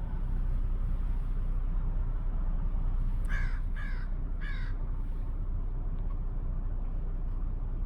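A bird calls three times in quick succession, about half a second apart, a little over three seconds in, over a steady low rumble.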